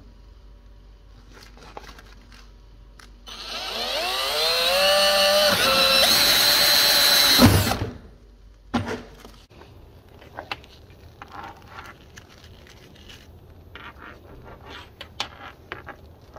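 Power drill starting about three seconds in and boring into a black plastic trim panel for about four seconds, its motor whine rising in pitch, then stopping abruptly. A few light clicks of handling follow.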